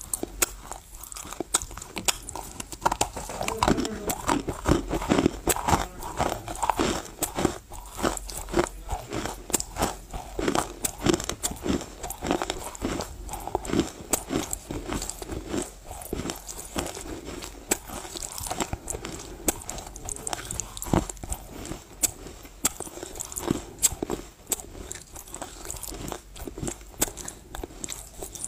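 Close-miked chewing of Chinese loess clay mixed with paste: a dense, irregular run of sharp crunches and clicks as the clay is bitten and ground between the teeth.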